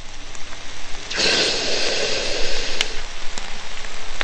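Logo-intro sound effect: a steady hissing, crackling noise that swells about a second in, with a single sharp click near the middle.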